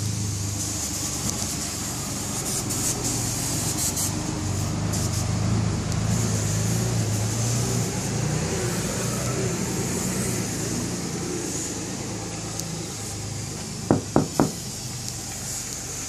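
Steady low machine hum, like a nearby engine running, with three quick, slightly ringing knocks on the trailer's painted body near the end.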